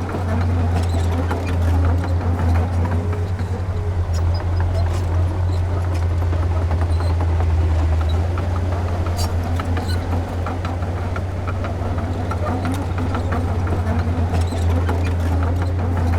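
Diesel engine of heavy earthmoving equipment running with a steady low drone, with scattered sharp clicks and clanks on top.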